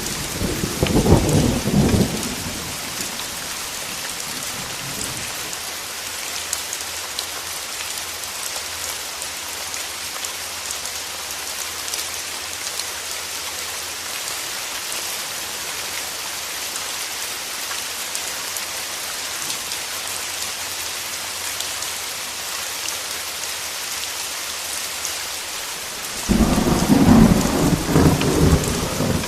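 Steady rain falling in a thunderstorm. Thunder rumbles at the start and again near the end.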